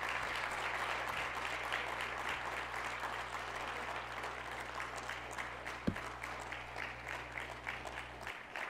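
Audience of a few dozen people applauding, easing off slightly toward the end, with one dull thump about six seconds in.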